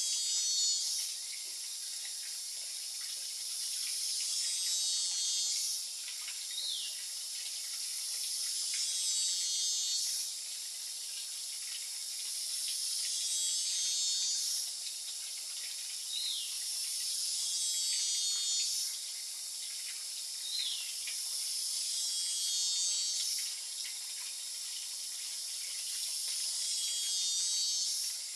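High-pitched forest insect chorus buzzing in repeating waves that swell and cut off about every four and a half seconds. A few short falling whistles sound in between.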